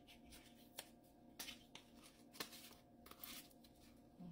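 Faint handling of a small plastic cheddar-seasoning shaker: a few sharp clicks and rustles as its blue cap is twisted and opened, over a faint steady hum.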